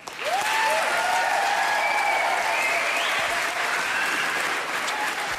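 Studio audience and panel applauding, starting abruptly and holding steady and loud as the guest of honour is introduced.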